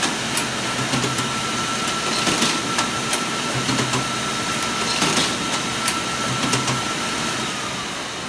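Bourg BST20 booklet maker with two collator towers running: a steady motor whine with irregular clicks and clacks of paper handling. The whine dies away near the end as the machine slows.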